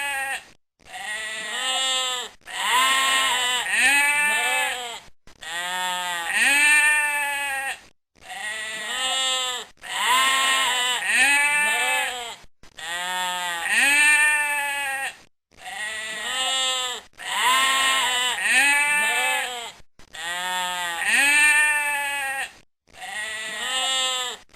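Sheep bleating again and again, each bleat rising and falling in pitch, in short runs of two or three bleats broken by brief silences every two to three seconds.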